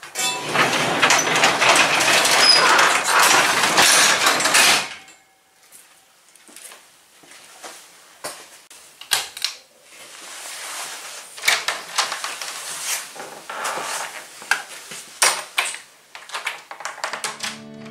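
Sectional garage door pulled down by hand, rolling noisily down its tracks for about five seconds and stopping suddenly, followed by scattered light knocks and clicks.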